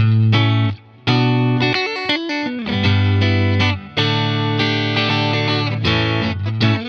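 S-style electric guitar with single-coil pickups, played through an amp with some drive: struck chords are left to ring, with short muted stops about a second in and near four seconds.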